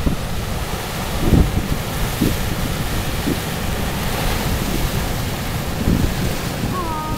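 Wind buffeting the microphone in gusts, over the steady wash of surf breaking on lava rocks.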